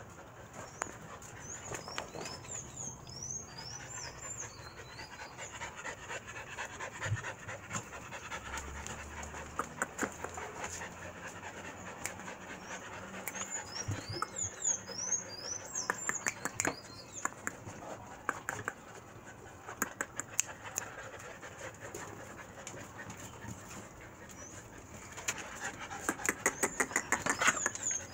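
Pit monster puppies panting steadily, getting louder near the end. Brief spells of high chirping come three times in the background.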